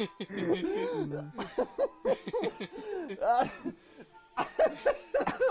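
A man laughing, half-stifled and spluttering, in short bursts that rise and fall in pitch.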